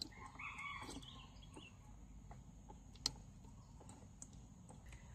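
A rooster crowing faintly for about a second near the start. A few sharp taps follow; the loudest, about three seconds in, is the loudest sound of all.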